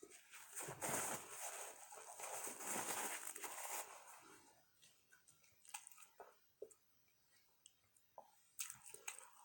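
Close-up eating sounds: crunching and crinkling for about three seconds, then quieter chewing with scattered small clicks.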